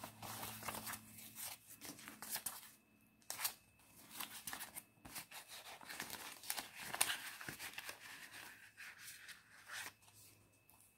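Paper banknotes rustling and flicking as they are counted by hand, then, about midway, the crinkle of a clear plastic zippered binder pouch as the bills are slid into it.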